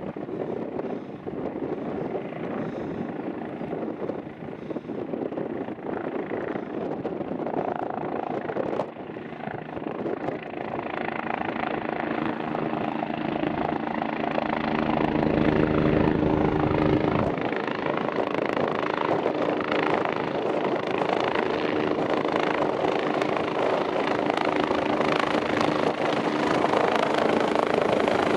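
BK 117 twin-turbine helicopter approaching to land. Its rotor and engine sound grows steadily louder, with a steady low hum building through the second half.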